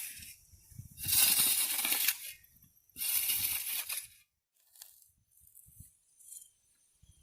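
A shovel scraping and tossing sand, three strokes about a second long and two seconds apart, then only faint small knocks.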